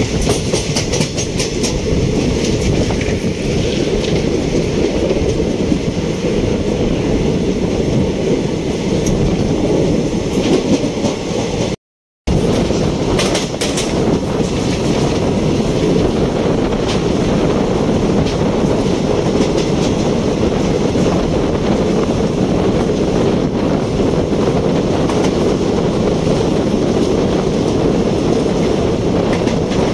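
Indian Railways ICF passenger coach running at speed through a station, a steady rumble of wheels on rail with clicks over rail joints. The sound drops out completely for a moment about twelve seconds in.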